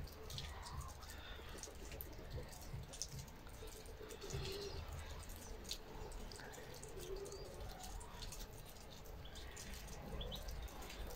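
Domestic hens clucking softly now and then, with a few short high chirps near the end.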